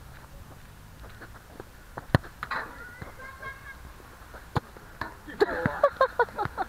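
A few sharp knocks of a football being kicked on an outdoor rubber court, then a burst of short shouted calls from players with more knocks near the end.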